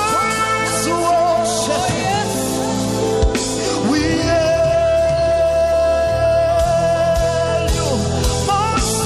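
Live worship band music: sustained keyboard and bass chords under drums and cymbal crashes, with a bending melodic lead, vocal or instrumental, that holds one long note in the middle.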